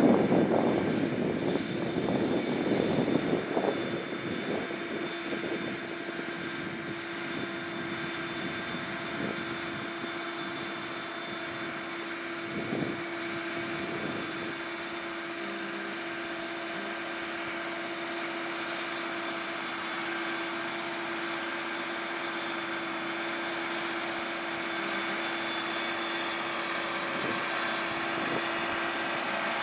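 Tractor engine running at a steady speed, an even droning hum with a constant whine. It is louder and rougher for the first few seconds, then settles.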